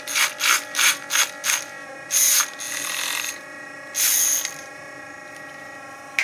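Handheld battery milk frother whirring as it whisks a powdered magnesium drink in a glass, its wire whisk rattling in a quick run of short bursts over the first two and a half seconds and once more at about four seconds. The motor hum stops at the very end.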